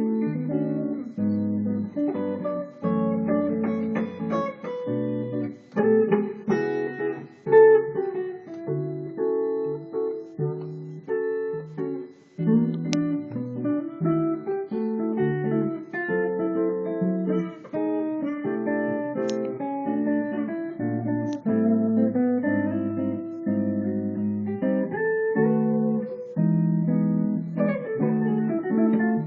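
Condor JC160 hollow-body electric guitar played clean through a Fender Frontman amp with a Marshall compressor, improvising jazz in a mix of chords and single-note lines.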